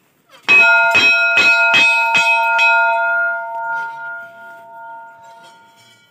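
Hanging brass temple bell struck about six times in quick succession, roughly two strikes a second, then ringing on and fading away over a few seconds.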